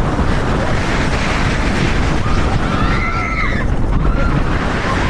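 Loud wind rushing over the microphone with a steady low rumble, and a few brief high-pitched squeals or cries about halfway through.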